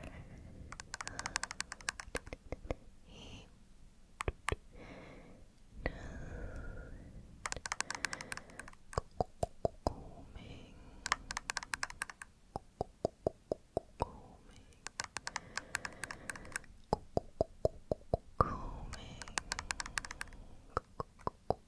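A comb's teeth dragged across the microphone in repeated strokes. Each stroke is a quick run of crisp clicking ticks, and a new stroke comes about every two seconds.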